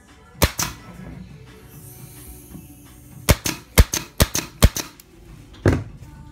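Micro-pin nailer firing 30 mm pins into the corner joint of 14 mm plywood: sharp snapping shots, two near the start, a quick run of about eight in the middle, and one more near the end.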